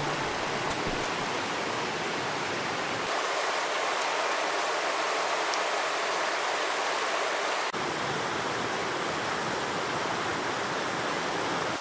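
Steady rush of a fast mountain creek tumbling over boulders and gravel in shallow rapids. The sound shifts abruptly about three seconds in and again just before eight seconds.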